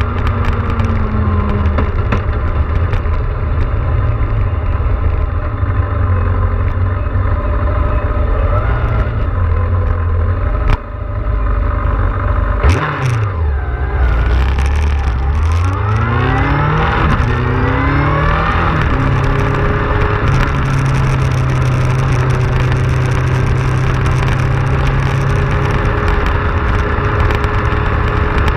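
Motorcycle engine with wind and road noise while riding. The engine note drops as the bike slows almost to a stop about twelve seconds in, then rises again through several gear changes as it pulls away, before settling into a steady cruise.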